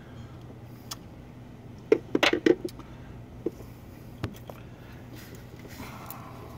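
Sharp metallic clinks and clicks of hand tools and parts being handled: a quick cluster about two seconds in, with a few single clicks before and after, over a steady low hum.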